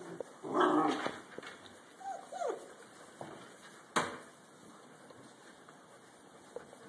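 Great Dane puppies at play: a short rough vocal burst about half a second in, a falling yelp near two and a half seconds, and a single sharp knock about four seconds in.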